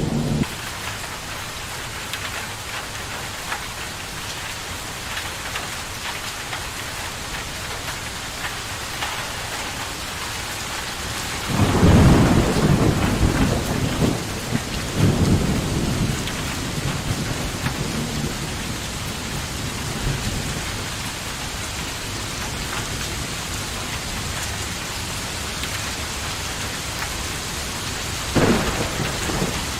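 Steady rain falling, with thunder: a loud low rumble starts about twelve seconds in and rolls on for several seconds, and a shorter clap comes near the end.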